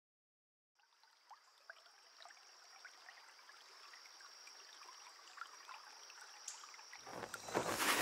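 Faint trickling water, with many small scattered drips and a thin steady high tone, fading in after about a second of silence. Near the end a louder sound swells in as music begins.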